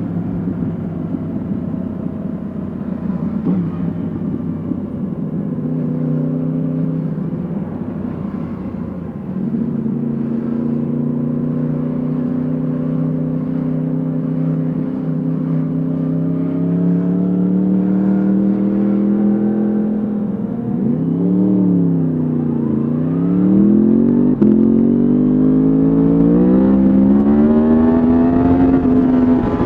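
Yamaha MT-10 SP's crossplane inline-four running through an Akrapovic exhaust while riding: a steady low note at first, then the revs climb from about halfway. About two-thirds in, the revs dip and rise twice in quick succession, then climb again and hold.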